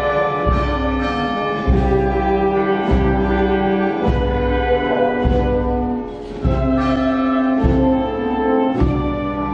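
Brass music: slow held chords with trombone-, trumpet- and horn-like tones, changing about once a second over a deep bass.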